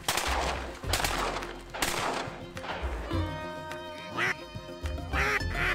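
Ducks quacking, a run of short calls in the second half, over background music. A burst of rushing noise fills the first two seconds.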